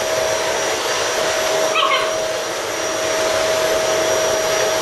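Vacuum cleaner running steadily, a constant motor whine over a rushing hiss, with its floor head close to the puppies. Just before two seconds in, a Czechoslovakian wolfdog puppy gives one short, wavering whimper.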